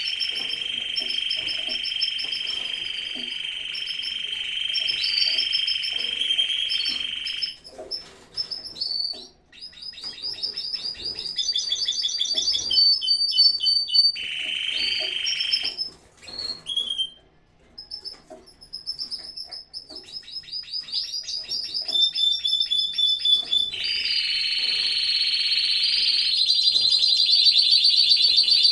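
Canaries singing: long, steady, high rolled trills that alternate with runs of rapid repeated chirps, briefly dropping away twice before building again near the end.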